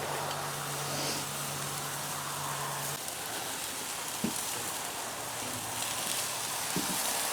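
Skirt steaks sizzling on the grate over a hot, wide-open fire in a drum cooker: a steady hiss, with a low hum that stops about three seconds in and a couple of light clicks.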